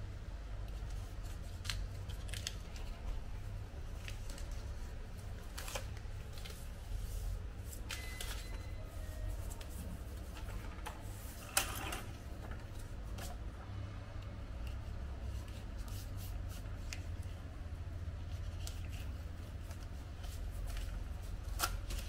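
Light clicks, rustles and taps of hands fitting black adhesive pads onto the plastic corner pieces of a washing-machine base rack, with one sharper knock about halfway through. A steady low hum sits underneath.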